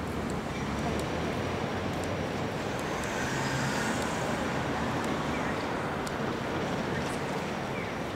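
Steady city street traffic noise from passing cars and other road vehicles.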